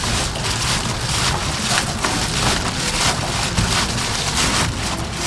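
Reflective foil bubble-wrap insulation crinkling and rustling as hands press and smooth it against a van's bare sheet-metal wall, in a run of irregular scratchy strokes.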